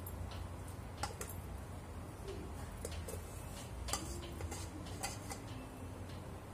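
A plastic rice spoon scraping and tapping against a metal pot as cooked rice is scooped into a wok: a few light, separate clicks over a steady low hum.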